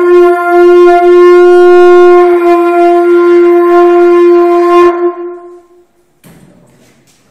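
Conch shell trumpet blown as one long, loud, steady note that holds for about five seconds and then trails off. A faint rustle follows near the end.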